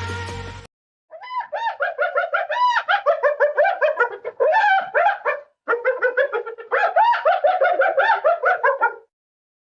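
Spotted hyena giggling, the hyena 'laugh': a fast string of short, high, rising-and-falling whooping notes, several a second, in two long bouts with a brief break between them.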